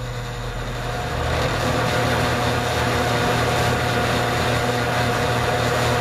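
Vintage Toastmaster 4425 box fan switched on high: its electric motor hums and the blades speed up, growing louder over the first two seconds. It then runs steadily with a rush of air.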